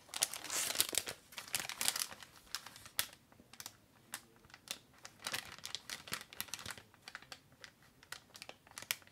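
Plastic candy-kit bag crinkling and crackling as it is picked up and handled, loudest in the first two seconds, then in scattered smaller crackles.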